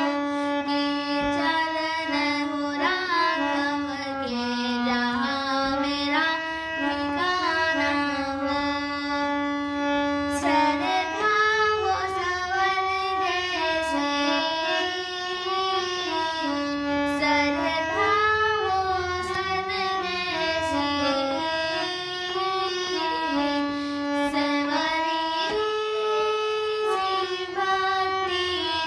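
Music of a Hindi devotional bhajan to Shri Ram: a melody of long held notes that step up and down, with a few light ticks.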